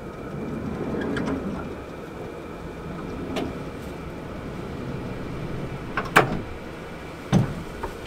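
Renault Master van's sliding side door rolling open, a rumbling slide lasting about a second, followed by a click a couple of seconds later. Later comes a sharp knock, the loudest sound, and a duller thump near the end.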